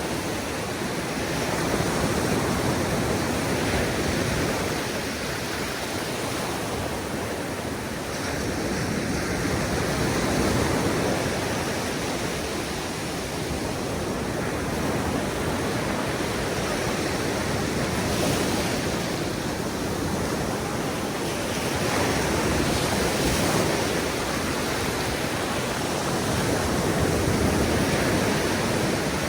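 Ocean surf breaking on the beach: a continuous wash that swells and eases every few seconds as the waves come in.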